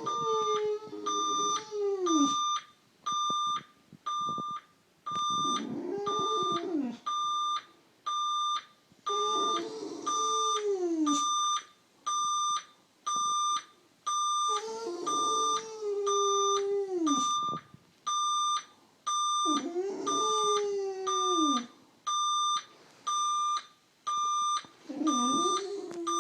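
Boxer dog howling at an alarm clock's repeated beeping. There are six drawn-out howls of about two seconds each, each dropping in pitch at the end, over a steady run of short, high beeps.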